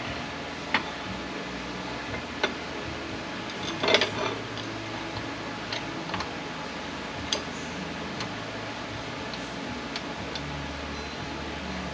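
Scattered small metal clicks and clinks of bolts and transmission parts being handled on a workbench, with a short rattling cluster about four seconds in, over a steady low hum.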